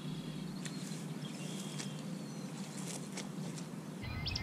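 Outdoor pond-side ambience: a steady low background with a few faint, short bird chirps and several soft clicks. Near the end a louder low rumble comes in.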